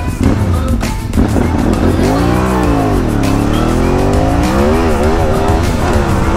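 An engine revving, its pitch dipping and climbing several times.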